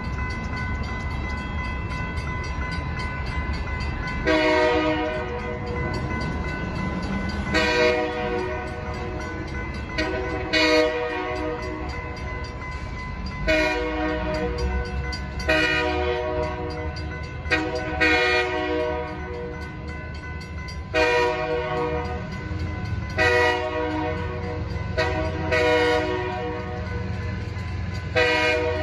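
Train horn blowing about ten blasts in a row as a train approaches a grade crossing, each blast a chord of several notes. Before the first blast and underneath, the crossing's warning bell rings steadily over a low rumble.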